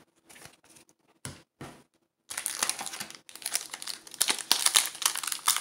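Foil wrapper of a Panini Score soccer card pack crinkling in the hands, starting a little over two seconds in, after a few soft clicks.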